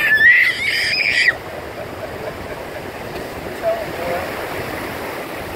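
A young child's high-pitched squeal for about the first second, then the steady wash of shallow surf over the sand.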